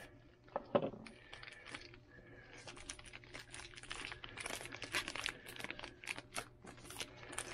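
A clear plastic packaging bag crinkling and rustling as it is handled and opened. The small crackles start sparse and come thick and fast for the last few seconds.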